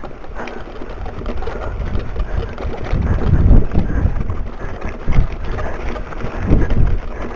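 Wind buffeting the microphone of a camera mounted on a mountain bike's handlebars, with the rattle and jolts of the bike riding over loose rocks. The jolts are heaviest about three to four seconds in and again near the end.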